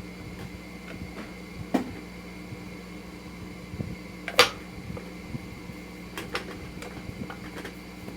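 Light clicks and knocks of metal parts being handled as a KLR650's stator cover is fitted, with two sharper knocks, one a little under 2 seconds in and a louder one about 4½ seconds in, over a steady low hum.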